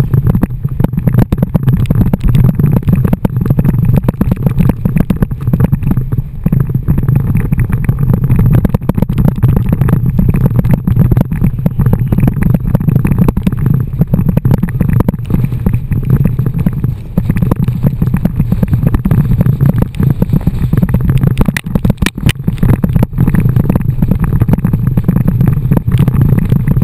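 Loud, steady low rumble of wind and water spray buffeting an action camera mounted on an inflatable tube towed at speed across the water, with crackling splashes throughout.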